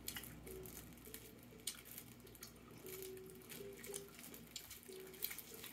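Quiet room with faint, scattered wet clicks and smacks of several people chewing bubble gum.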